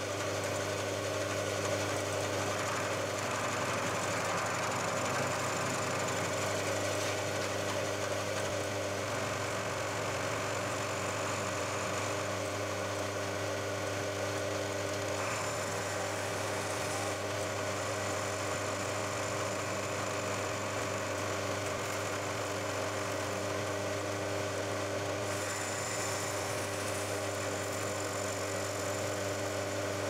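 Bridgeport milling machine running steadily at about 450 RPM, a 20 mm slot drill milling a slot through the side of a round pipe, with a constant motor hum under the cutting noise.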